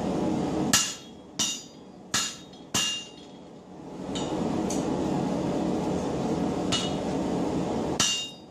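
Hammer blows on a hot 4140 steel hammer blank at the anvil: four sharp ringing strikes about two-thirds of a second apart, then a pause filled with a steady rushing noise and a few light ticks, and another strike near the end.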